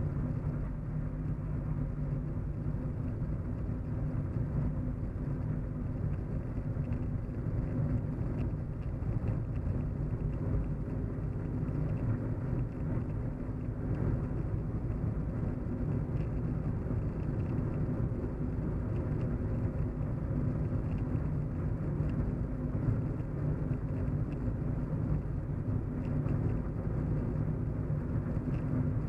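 Steady low hum of a moving car heard from inside the cabin: an even engine and road rumble with a faint steady tone running through it.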